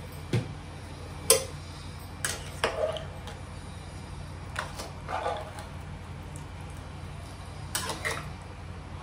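A metal spoon clinking and knocking against a pressure cooker pot now and then, the sharpest knock about a second in, over a steady low hum.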